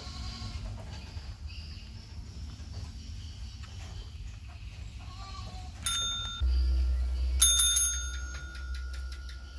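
Desk service bell struck once about six seconds in, then struck again and tapped rapidly several times, its clear ringing tone lingering after each strike. It is rung as a call signal to bring the rabbits.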